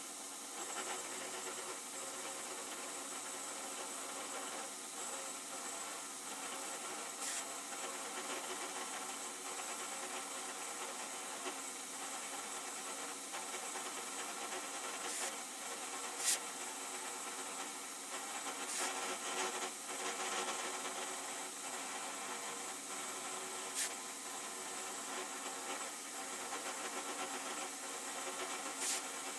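Milling machine running, its end mill cutting a slot lengthwise into a cold-rolled steel jaw blank: a steady whir and hiss of the cut, with several sharp ticks scattered through it.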